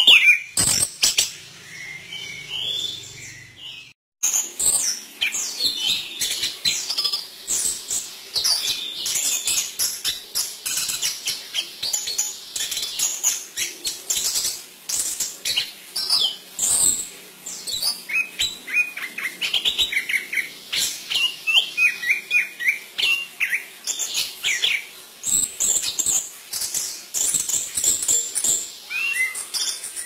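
Caged chestnut-capped thrush singing a long, rapid, varied song of chirps and whistled notes with hardly a pause, after a brief break about four seconds in.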